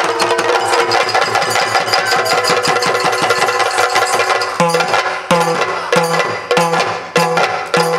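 Yakshagana percussion ensemble with chande and maddale drums playing a fast, dense roll over a steady drone. About halfway through it settles into slower, even strokes, about two a second.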